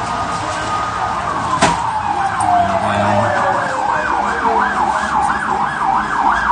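Emergency vehicle siren passing in the street: a held tone slides down in pitch, then a fast wail rises and falls about two to three times a second. A single sharp click sounds about a second and a half in.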